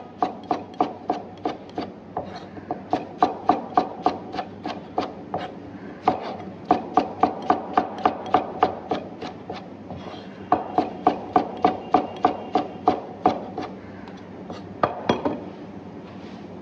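Knife slicing tomatoes on a wooden cutting board: quick, sharp strokes about four a second, in runs of a few seconds with short pauses, stopping near the end.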